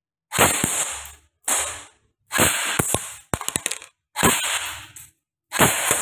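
E&C 640 electric airsoft rifle (an M4-type AEG) firing about six short strings of shots, each under a second long with brief pauses between, echoing in a small room.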